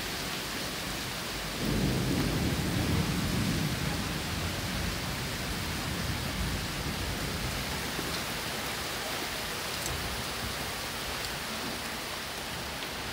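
Heavy rain pouring steadily, a dense even hiss. About two seconds in, a low rumble swells over the rain and fades over a couple of seconds.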